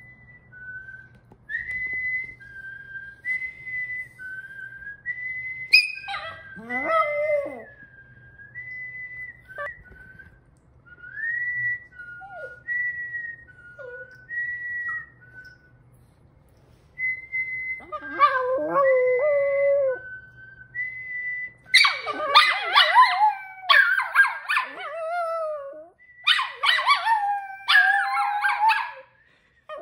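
A man whistling a slow tune of short notes that step between a higher and a lower pitch, with a small dog joining in with brief howls twice. From about two-thirds in, two small dogs howl loudly along with the whistling in long, wavering howls.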